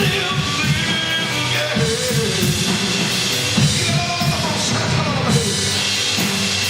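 Live church band music with a drum kit keeping a steady beat under sustained instrument tones.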